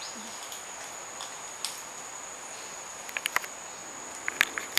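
An insect drones on one steady high-pitched tone, with a few sharp cracks in two quick clusters, about three seconds in and again near the end.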